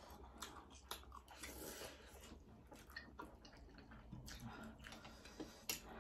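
Faint eating sounds: chewing and biting of instant ramen noodles, with scattered small clicks of forks against plates and one sharper click near the end.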